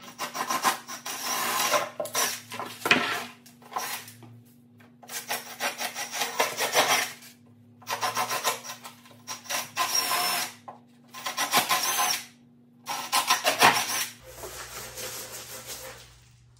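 Cordless drill boring bolt holes through a plywood wheel blank, in a series of bursts one to three seconds long, each starting and stopping with short pauses between. The drilling stops a little before the end.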